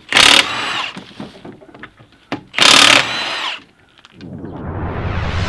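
A power tool run in two short, loud bursts about two and a half seconds apart. From about four seconds in, a rushing noise with a low rumble swells up.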